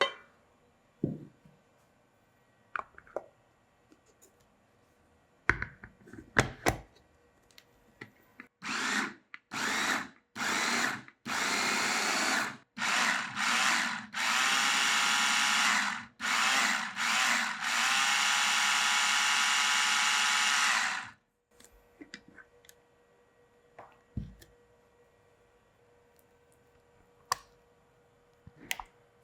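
Small electric kitchen motor, like a blender's, pulsed in several short bursts and then run steadily for about seven seconds, its pitch rising a little as it gets up to speed. A few light knocks and clicks come before and after it.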